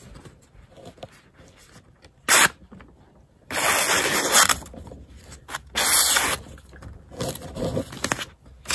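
Knife blade slicing through a sheet of printed paper, making several hissing, zipping cuts: a short one a little over two seconds in, a longer one about a second after it, then more near the end. It is a paper-cutting sharpness test on an edge freshly stropped on a leather belt.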